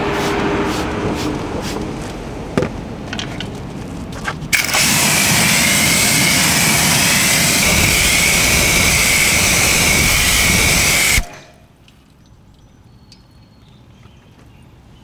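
Pressure washer spraying water onto a car wheel: a loud, steady hiss for about six seconds that cuts off abruptly. It is preceded by quieter, uneven hissing with scattered light clicks.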